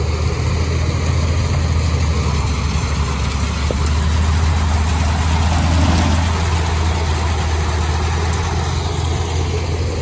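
KS-9300 combine harvester running steadily while harvesting rice, a loud low engine drone that swells a little about six seconds in as the machine comes close.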